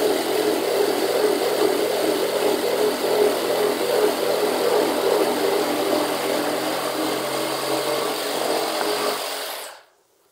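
Makita reciprocating saw cutting through a thick wooden slab, its blade stroking with a fast, even pulse. It cuts off sharply near the end as the cut is finished.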